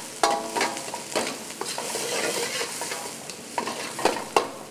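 Steel ladle scraping and clanking against a kadai as onions, chillies and curry leaves are stirred and sizzle in hot oil. A steady frying hiss runs under irregular scrapes, a few of which ring like struck metal.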